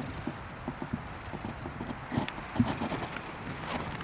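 Soft, irregular low knocks, roughly one or two a second, against a faint background hiss.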